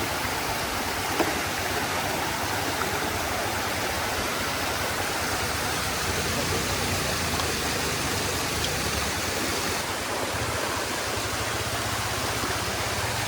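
Steady, even rushing noise with no pitch or rhythm, with one faint click about a second in.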